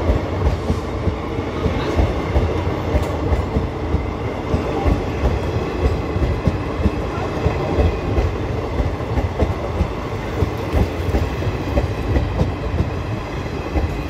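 ICF passenger coaches, double-deckers and a single-deck coach at the rear, rolling past close by, their wheels clattering in a rapid, uneven run of clacks.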